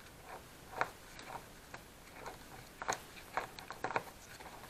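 Faint, irregular clicks and ticks of the two already-loosened Torx screws being turned out of the fuel filter housing on a plastic snowmobile fuel tank, with a quick cluster of them a little past halfway.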